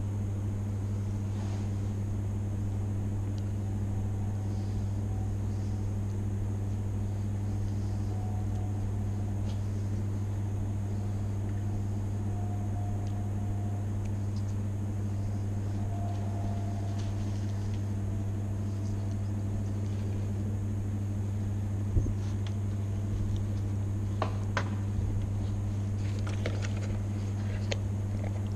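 A steady low machine hum, with a single sharp knock about 22 seconds in and a few lighter clicks and taps after it.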